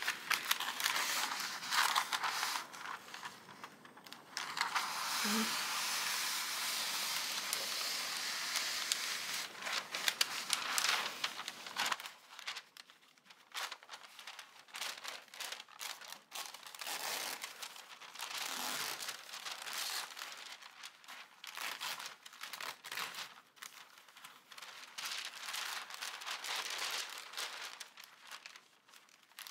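Paper rustling and crinkling as a sheet of diamond-painting cover paper is handled and laid over the canvas, with a longer unbroken stretch of rustling from about 5 to 10 seconds in, then shorter, quieter rustles.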